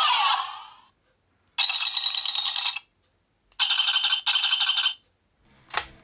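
DX Fifteen Lockseed toy playing its electronic sound effects through its small speaker, a chime followed by ringing, tone-like bursts: one about a second long, then two short ones close together, and a sharp swish near the end.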